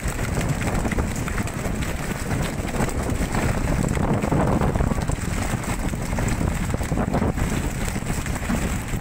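Wind buffeting the microphone aboard a fishing boat at sea, over the steady running noise of the boat and water along the hull.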